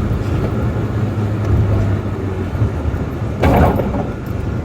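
Vehicle engine running steadily with a low hum, and a brief noisy rush about three and a half seconds in.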